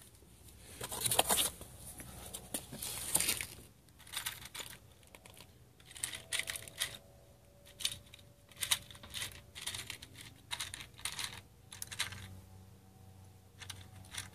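Handling of an electrical cable: irregular rustling, scraping and light clicks as the cable is pulled and moved about among the pipes and fittings. Two louder scrapes come about one and three seconds in, then a string of small ticks and rustles that dies down near the end.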